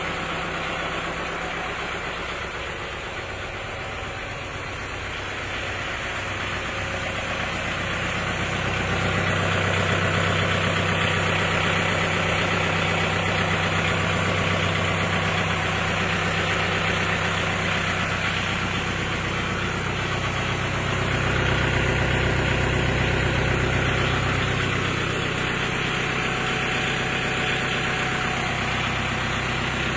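Kubota tractor's diesel engine idling steadily, swelling a little in loudness about a third of the way in and again about two-thirds of the way in.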